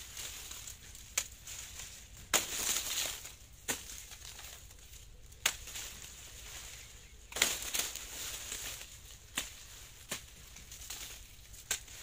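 Machete chopping sugarcane stalks, a sharp knock every second or two, with crackling rustles of dry cane leaves being trampled and dragged.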